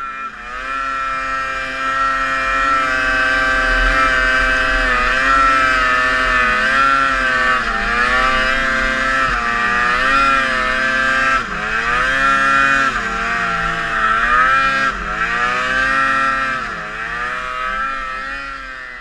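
Snowmobile engine running under changing throttle, its pitch climbing and dipping over and over as it revs up and eases off. It fades out near the end.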